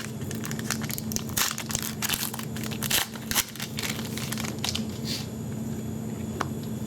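Crinkling and tearing of a trading-card pack wrapper as the next pack of hockey cards is opened, in irregular crackles heaviest in the first half, over a steady low hum.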